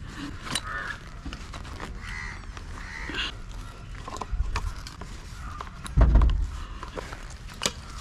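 Close handling noise of tree-climbing gear: scattered clicks and rustles of straps and buckles at the boots, and of a saw lifted from a coil of rope. A heavy low bump comes about six seconds in.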